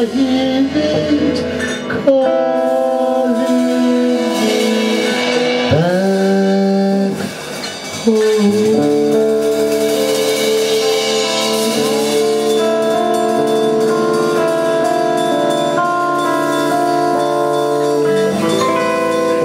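Live band music: a man singing long held notes into a microphone over guitar, scooping up into each new note.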